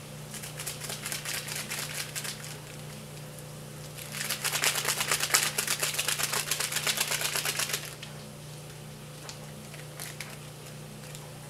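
An MRE ration packet being shaken and crinkled by hand, giving a rapid clicking rattle in two spells. The second spell starts about four seconds in, is louder, and lasts about four seconds.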